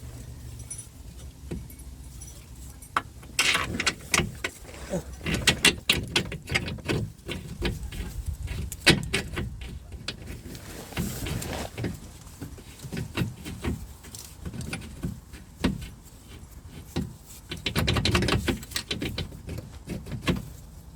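Irregular metallic clinks and knocks of hand tools and steering-rack parts being worked on under a car, with a louder rattling stretch of about a second near the end.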